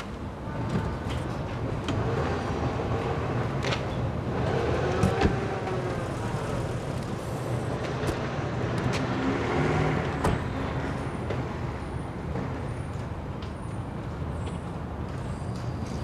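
Road vehicle engines and traffic running, with the pitch rising and falling in places and a few sharp clicks.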